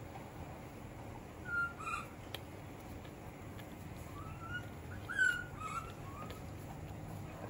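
Baby monkey giving short high squeaks: two about a second and a half in, then a run of several more around the middle, the loudest about five seconds in.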